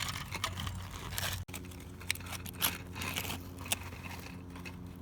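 Toy construction trucks scraping and crunching in dirt, with a few sharp clicks in the second half over a steady low hum.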